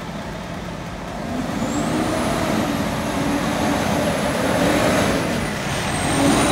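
Fire engine's engine pulling away and passing close by, rising in pitch and getting louder about a second in as it accelerates, then holding steady, with a thin high whine over the rumble.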